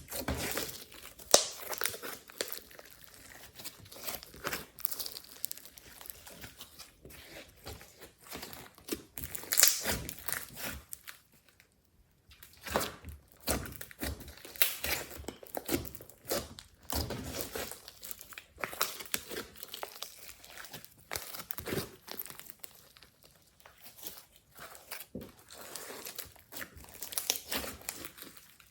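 Glossy slime being squeezed and stretched by hand, giving irregular sticky crackles and pops, with a short lull partway through.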